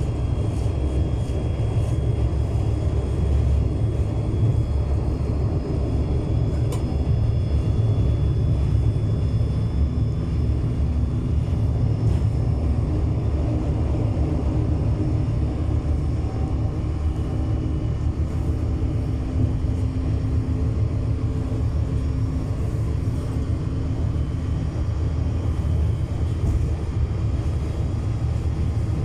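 Inside an LVT/S diesel railcar running at speed: a steady low rumble of the engine and wheels on the rails, with a faint steady whine over it and a single click about seven seconds in.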